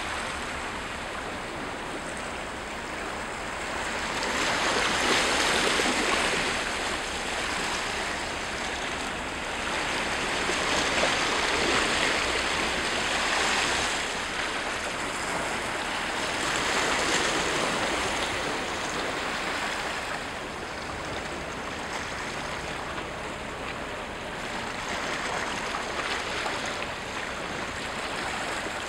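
Small waves washing against rocks at the water's edge, a steady rushing that swells and eases every few seconds.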